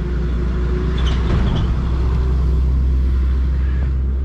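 A steady, loud low rumble, with a faint brief higher rustle about a second in.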